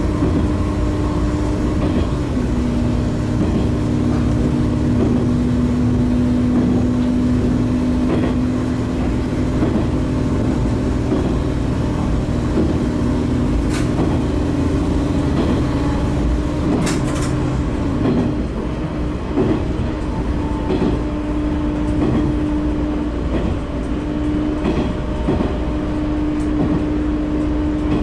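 A Tosa Kuroshio 9640-series diesel railcar running between stations: a steady engine drone whose tones shift a little in pitch, over rumbling wheel and rail noise. Two sharp clicks come partway through.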